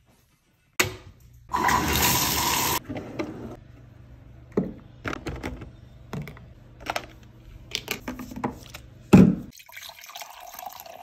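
A string of quick household sounds: a loud burst of running water about two seconds in, a scatter of knocks and clatters of things being handled, and near the end coffee being poured from a glass carafe into a ceramic mug.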